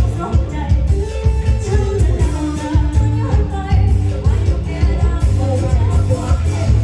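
Luk thung song played by a student band: a singer's melody over an electric band with heavy bass and a steady drum beat.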